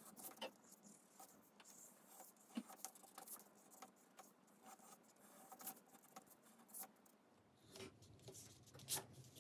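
Faint pencil strokes scratching on drawing paper, with scattered soft ticks and light rustles.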